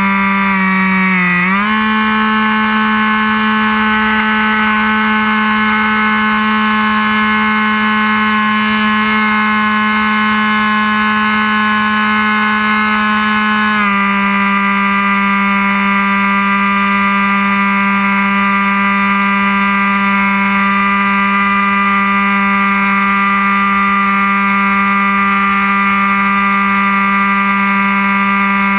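Whine of an RC plane's Emax 1580KV brushless outrunner motor spinning a 7x5 propeller at steady throttle. The pitch rises about a second and a half in and dips slightly about halfway through, as the throttle is changed.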